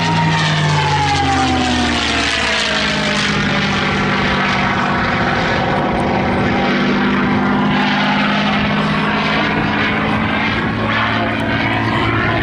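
P-51D Mustang's Packard Merlin V12 engine at display power as the fighter passes close overhead: its pitch drops over the first couple of seconds, then it holds a steady drone as it flies away.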